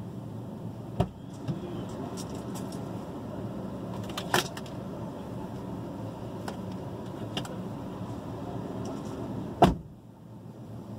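A vehicle engine idling with a steady low hum. Sharp knocks come about a second in, about four seconds in, and loudest near the end, after which the hum briefly drops.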